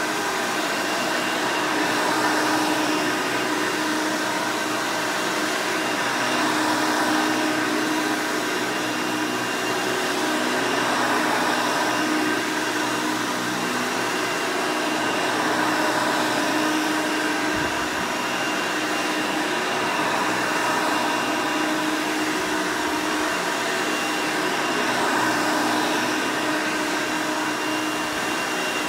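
Vintage Hoover Elite 200 upright vacuum's 5-amp direct-air motor running steadily: a loud rush of air with a steady motor whine over it, swelling a little every few seconds.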